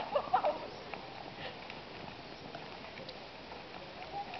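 Steady outdoor background noise, with a few words of voices in the first half-second and voices again just before the end.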